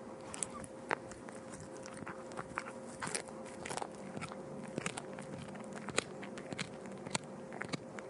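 A cat eating, with irregular crunching bites and chewing a few times a second over a faint steady hum.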